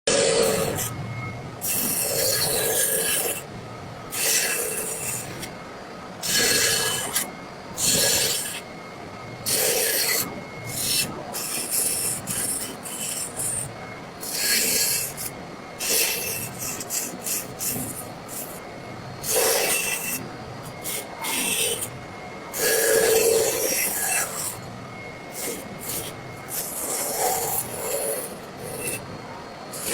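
Carving tool scraping and cutting into wood in short, irregular strokes with brief pauses between them.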